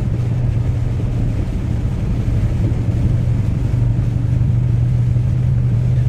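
Steady low engine drone and road rumble inside a moving vehicle.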